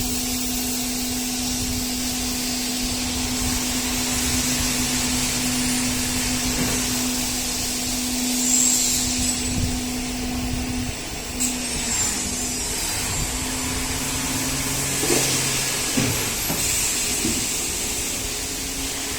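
Aluminium-profile CNC milling machine running: a steady motor hum over a constant hiss. A lower tone comes and goes twice, and a few sharp clicks and brief hisses break in during the second half.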